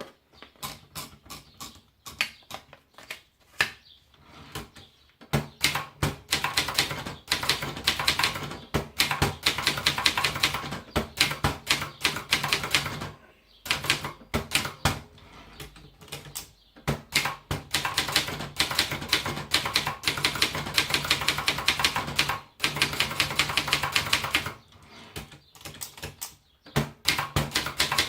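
Brother Deluxe 220 typewriter being typed on: a few separate keystrokes at first, then fast, continuous runs of key strikes broken by a few brief pauses.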